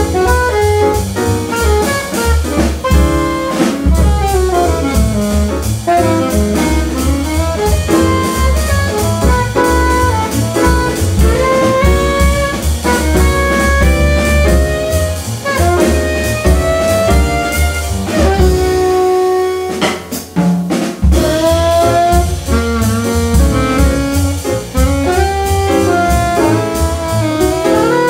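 Jazz quartet playing: an alto saxophone carries the melody over piano, double bass and a drum kit with cymbals. About twenty seconds in, the bass and drums stop for a moment under a long held note, then the band comes back in.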